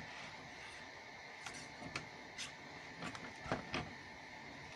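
Faint scattered clicks and light rustles of a paper strap and a glue bottle being handled, as the glued strap is laid onto a paper box, over a steady low hiss.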